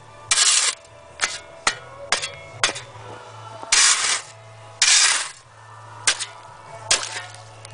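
Metal spade chopping and scraping at the ice of a frozen garden pond: short, sharp chinking strikes of the blade on the ice, with three longer scrapes through ice and snow.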